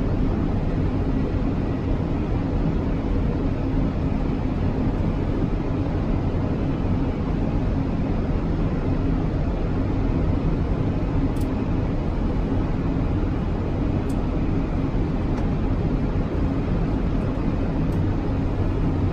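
Steady rumble of airflow and engines heard inside an Airbus airliner's cockpit in flight, with a faint steady hum. The aircraft is on its approach to landing.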